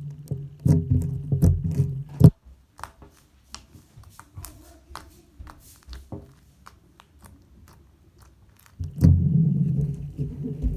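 Slime being squeezed and poked by hand, a run of small wet clicks and pops. Guitar background music plays over it, stops about two seconds in and comes back near the end.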